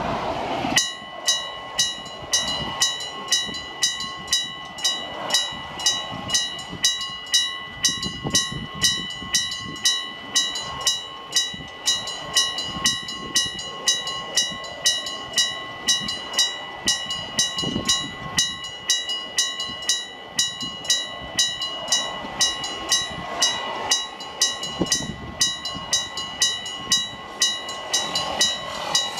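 Electric-bell level crossing signal (電鈴式踏切) ringing: a hammer striking a metal gong in a steady, even rhythm of about two and a half strikes a second, each ring sustaining. It starts about a second in, warning that a tram is approaching.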